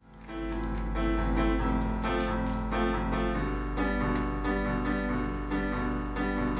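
Piano music: a song's instrumental introduction of repeated chords over a steady low bass, fading in from a brief silence at the start.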